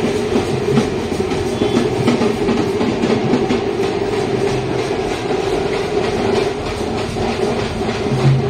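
A farm tractor's diesel engine running steadily, with music playing over it.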